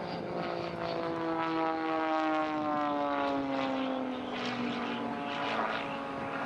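Piston-engined aerobatic propeller aircraft flying past, its engine and propeller drone falling steadily in pitch, with rougher noisy surges in the second half.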